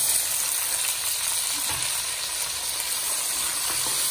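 Chopped tomatoes sizzling loudly in hot oil and ginger-garlic paste in a steel karahi as they are tipped in and stirred with a wooden spoon; a steady, even frying hiss.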